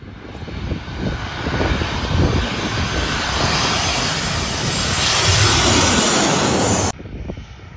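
Ryanair Boeing 737 on final approach, its jet engines and rushing air building to a loud roar as it passes low overhead. The roar cuts off abruptly about seven seconds in, leaving a quieter, lower rumble.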